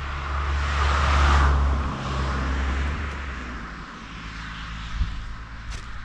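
A vehicle passing by: a rushing noise that swells to a peak about a second in, then slowly fades, over a steady low rumble.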